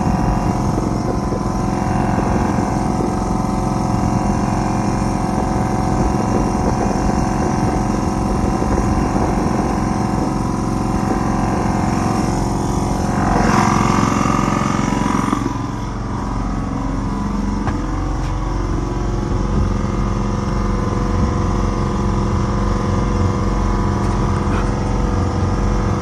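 Small boat's engine running steadily under way through choppy water. A louder rush of water and spray comes about halfway through, then eases.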